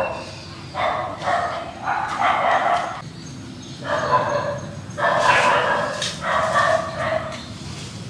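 An animal crying out again and again: about five drawn-out pitched calls, each nearly a second long, over a steady low background noise.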